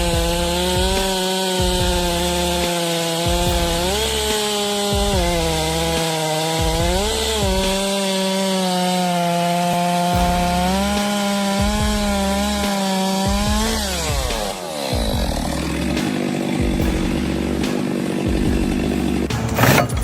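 Two-stroke chainsaw running at high revs through wood, its pitch sagging briefly a few times as the chain bites and then recovering. About fourteen seconds in the revs fall away, leaving a lower, rougher running sound.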